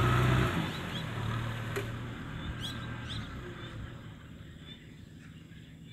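Kubota M6040 SU tractor's diesel engine running under load in the mud, dropping off sharply about half a second in and then fading away. Several short bird chirps sound over it.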